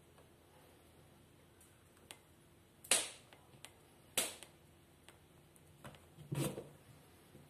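Three sharp knocks, the first two short and the third heavier and longer, spaced about one and two seconds apart, over a faint steady background hum.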